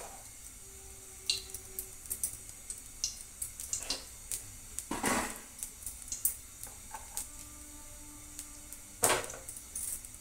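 Dishes and utensils handled in a kitchen: scattered light clicks and clinks, with louder clatters about five and nine seconds in.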